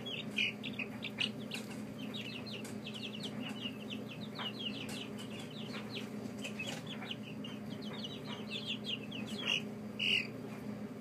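A brood of young chicks peeping continuously in rapid, high, downward-sliding cheeps, with a few louder calls about half a second in and about ten seconds in, over a steady low hum.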